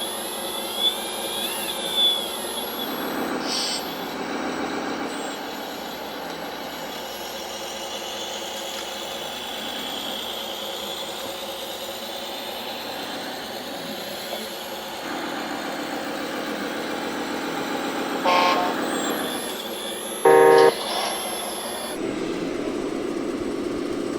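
Electronic sound modules in radio-controlled model trucks and tractors playing diesel engine sounds through small speakers. There is a short horn toot about 18 seconds in and a louder horn blast about two seconds later.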